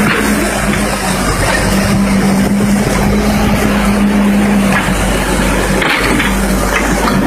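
A heavy machine's engine running steadily, with a constant hum over a loud, noisy rumble; the hum drops away a little before the end.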